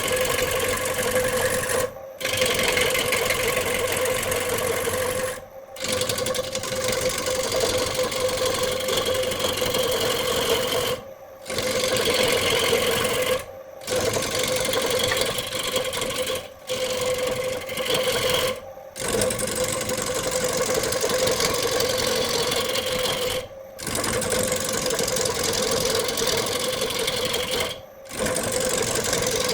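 Electric woodworking power tool running with a steady motor whine over a rough cutting noise, broken by short gaps every few seconds.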